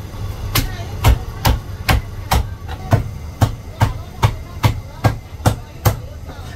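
Chinese cleaver chopping roast meat on a thick round wooden chopping block: about thirteen steady, evenly spaced chops, a little over two a second, each a sharp knock with a heavy thud from the block, stopping shortly before the end.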